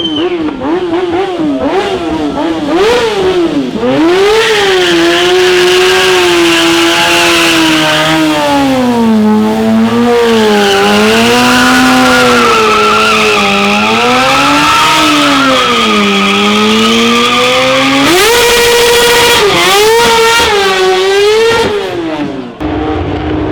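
Racing car engine at hard throttle, loud and close, its pitch climbing and falling again and again as it runs up and down through the gears. Near the end it holds one high note for a second or so, then cuts off suddenly into a different, steadier engine note.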